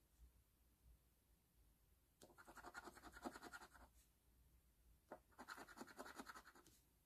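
A coin scratching the coating off a paper scratch-off lottery ticket. There are two bursts of rapid back-and-forth strokes, the first about two seconds in and the second about five seconds in.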